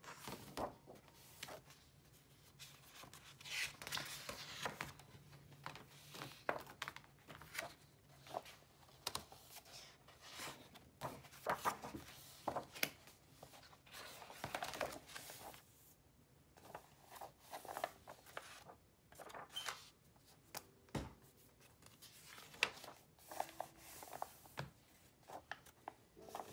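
Sketchbook pages being turned and handled: paper rustling and crinkling in irregular bursts, with sharp little ticks of sheets snapping over.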